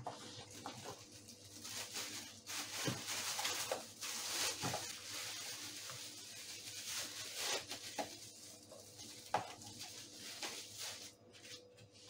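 Thin plastic carrier bag rustling and crinkling as it is wrapped around a food container and its handles are tied, with a few light knocks.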